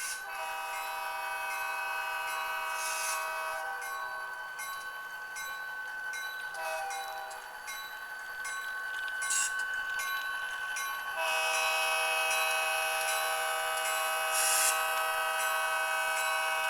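Digitally sampled EMD diesel locomotive horn played by an ESU LokSound Select sound decoder through a small sugar-cube speaker in an HO-scale SD40-2 model. It gives a long blast, a short one, then another long blast, with a few brief hisses in between.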